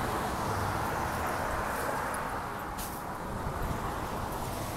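Steady outdoor background noise in the rain, with a low hum that stops about a second in and a faint click near the middle.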